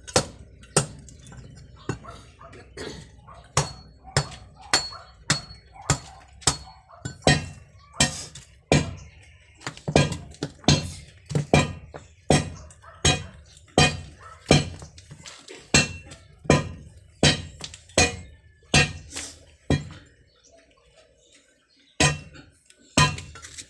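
A metal hand tool striking repeatedly and sharply, settling into a steady rhythm of a little over one strike a second, with a brief pause near the end.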